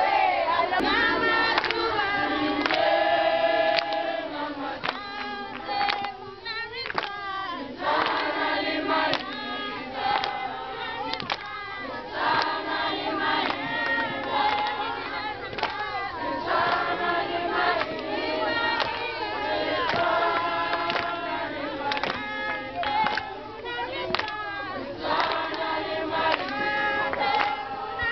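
A group of children and teenagers singing together in chorus.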